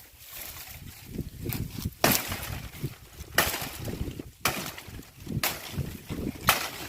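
Chopping blows stripping bark off a tree trunk: sharp strikes roughly once a second, about five of them from about two seconds in, with rustling between.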